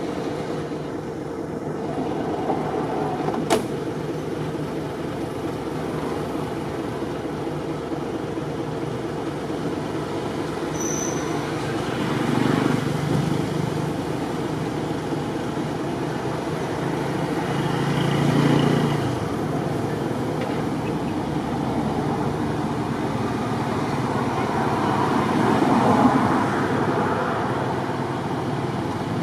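Steady outdoor background noise with road traffic passing: three vehicles swell up and fade away, a third of the way in, past the middle and near the end. A single sharp click comes about three and a half seconds in.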